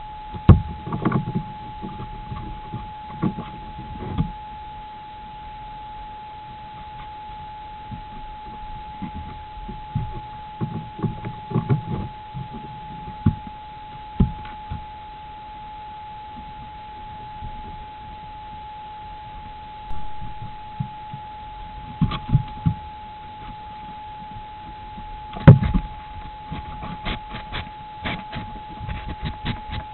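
Young stone marten bumping, scraping and rubbing against a trail camera: irregular knocks, rustling and sharp clicks on the camera body, with a quick run of clicks near the end. A steady thin high tone lies underneath throughout.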